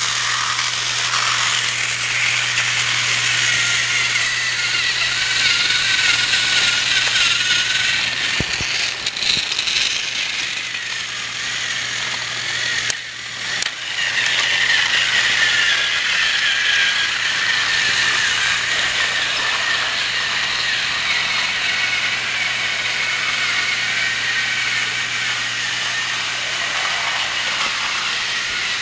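Battery-operated Thomas TrackMaster toy train running steadily along its plastic track, its small gear motor and wheels making a continuous mechanical whir, with a brief dip in the sound about halfway through.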